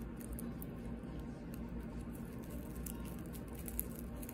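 Faint dry crackling and rustling of a dried calendula seed head being pulled apart between fingertips, over a steady low hum.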